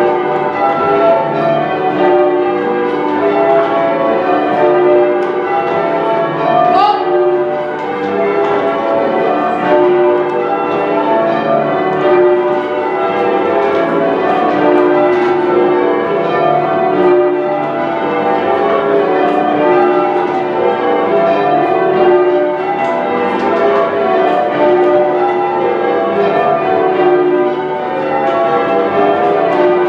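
A ring of ten church bells in change ringing: a steady, continuous run of strikes whose ringing tones overlap one another.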